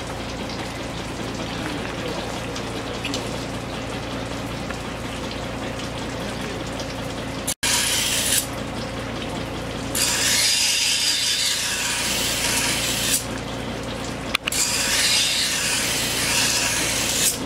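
Motor-driven horizontal grinding wheel running with a steady hum, while a steel Japanese knife blade is pressed against it to grind the edge. The grinding gives a loud hiss in stretches: briefly about eight seconds in, then for about three seconds, and again near the end.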